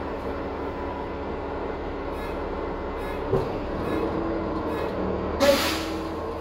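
A 2021 Gillig Low Floor bus's Cummins L9 diesel engine and Voith transmission running steadily, heard from inside the bus. A knock comes about halfway through, and a short hiss of air near the end.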